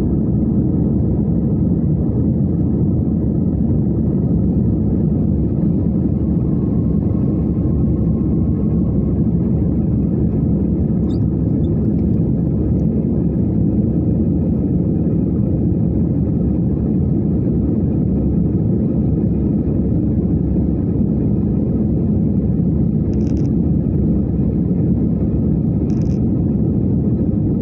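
Steady low rumble of an Airbus A320-family jet airliner's engines and airflow, heard inside the cabin during the climb after take-off. Two short, faint high-pitched chirps come near the end.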